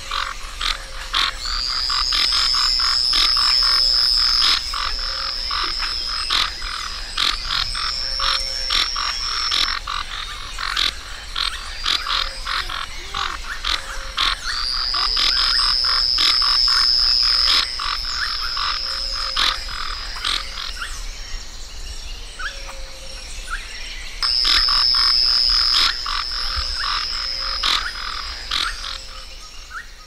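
Tree frogs calling: a rapid, irregular series of sharp clicks. Over them, a high, steady whistling tone comes and goes several times in bouts of two to three seconds, and these bouts are the loudest part.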